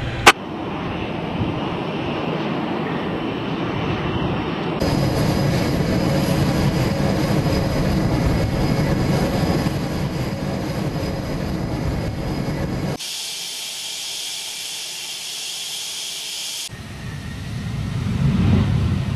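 F/A-18 fighter jet engines running, in several clips joined by hard cuts. A sharp click comes just after the start, then a steady jet roar. About thirteen seconds in there is a few-second stretch of high-pitched engine whine with no low rumble, and near the end the jet noise swells.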